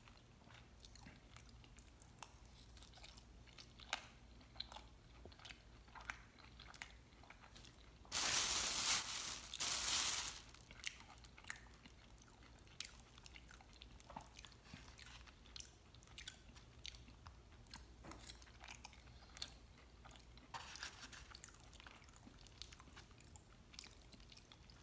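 Faint close-up eating: chewing and crunching of chilaquiles (sauced fried corn tortilla chips), with light clicks of a metal fork against a styrofoam container. About eight seconds in, a louder hissing noise lasts about two seconds.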